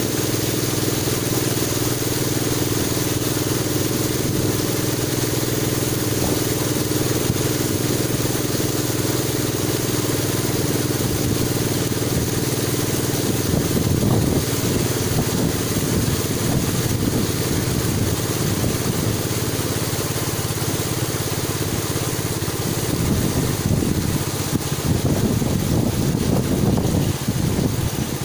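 Long-tail boat engine running steadily under way, with rougher, louder stretches about halfway through and again near the end.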